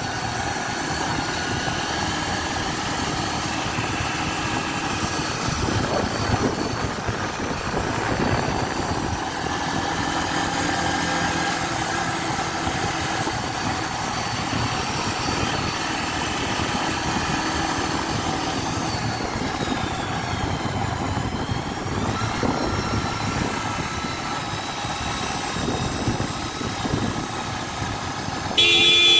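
Motor vehicle engine running at road speed, heard from on board along with road and wind noise. A horn toots briefly at the very end.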